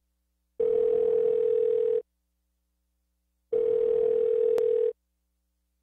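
Telephone ringback tone heard through the earpiece: a steady tone sounding twice, each about a second and a half long with a silent gap between. It is the sound of an outgoing call ringing out, not yet answered.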